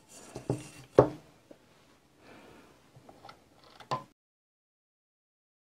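Light knocks and handling clatter from a metal mesh strainer and a plastic mini-chopper bowl being picked up and set down. The sharpest knock comes about a second in and a last one just before four seconds, after which the sound cuts off to silence.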